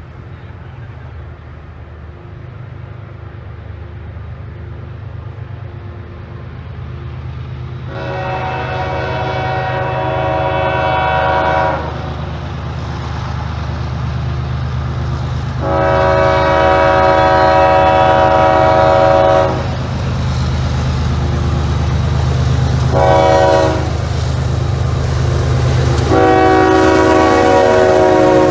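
CSX freight diesel locomotive approaching, its engine rumble growing steadily louder as its multi-note air horn sounds two long blasts, a short one and a final long one: the standard grade-crossing warning signal.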